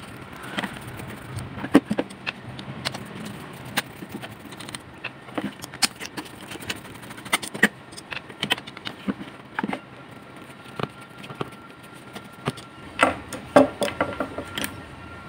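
Scattered metallic clicks and light knocks from an electric fan motor's metal housing and parts being handled, with a screwdriver tapping against them. A cluster of louder clicks comes near the end.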